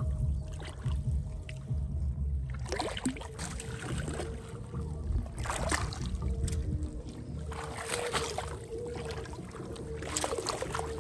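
Hands sloshing and splashing in shallow pond water in several short bursts, over a steady low rumble.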